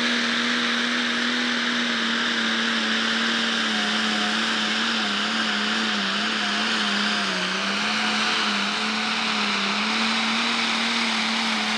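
Turbocharged diesel engine of a Pro Stock pulling tractor running at full throttle under load while pulling the weight sled. It holds one steady high engine note that wavers and sags slightly about halfway through, then steadies again.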